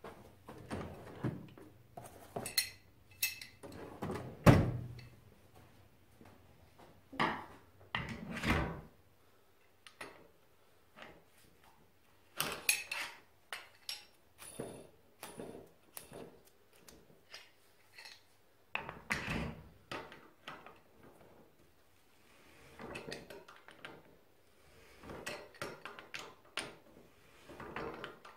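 Steel tool chest drawers sliding open and shut and metal hand tools clinking as they are picked out, with one heavy thump a few seconds in. Later come scattered metallic knocks and scrapes as a tool works the notched spring preload lock rings of a Showa motorcycle rear shock.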